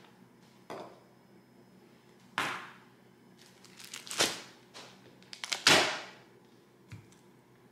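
About five quick whoosh sound effects, each a short swelling rush of noise that fades, spaced a second or two apart. A faint low hum runs underneath.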